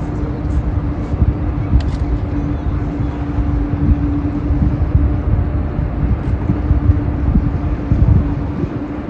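Large cruise ship passing close by: a steady, loud drone with one constant humming tone over a deep rumble from its engines and machinery.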